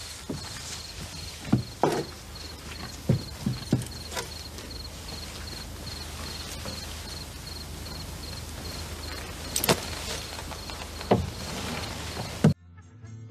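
Crickets chirping steadily with a regular pulsing chirp, over the thumps and knocks of two men scuffling against a wooden wall. The impacts come in a cluster in the first four seconds and again near the end. The sound cuts off suddenly just before the end.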